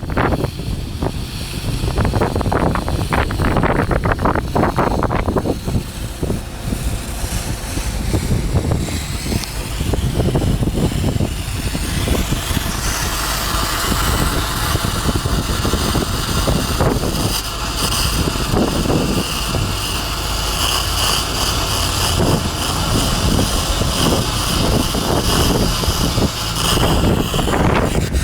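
Stick welding with 6010 electrodes on a large steel water pipe: the arc is struck about twelve seconds in and keeps up a steady crackling hiss, then breaks off just before the end. An engine runs underneath throughout, with wind on the microphone.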